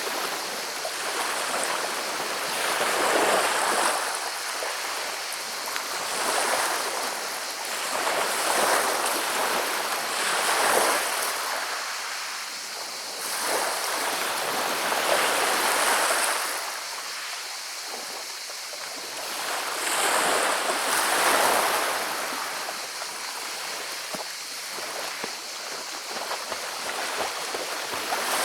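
Sea waves washing up and drawing back over a pebble beach, the water rolling the stones with a rattling hiss. The surges swell and fade every few seconds.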